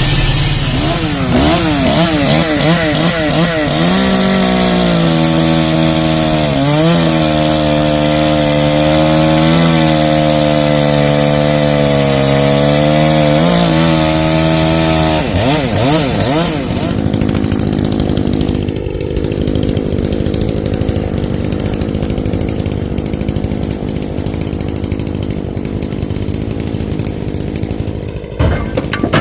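Chainsaw cutting oak posts: it revs up and down a few times, then holds at full speed in the cut for about ten seconds, with brief dips in pitch as it loads. After a few more revs, it drops to a quieter, lower running for the rest.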